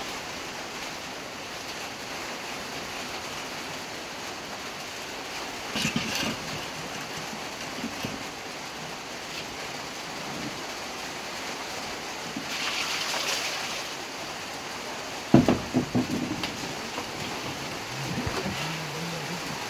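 A steady rushing hiss, with metal pots and pans knocking a few times; the loudest clank comes about fifteen seconds in and rings briefly.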